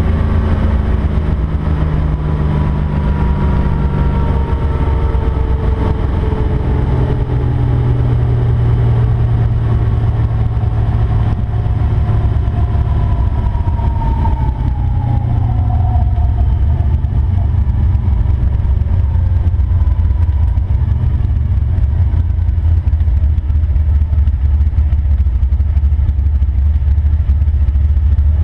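Chevrolet Nova's engine heard from inside the cabin, running low and steady as the car rolls along at low speed, with thin whines that fall in pitch, the clearest one about halfway through.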